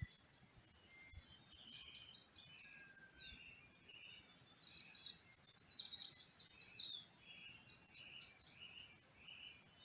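Tropical forest birds at dawn: a bird sings fast runs of high chirping notes that pause about three seconds in and then resume, while other birds give softer, lower calls.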